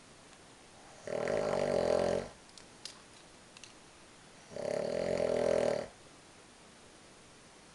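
A sleeping person snoring: two snores, each a little over a second long, about three and a half seconds apart.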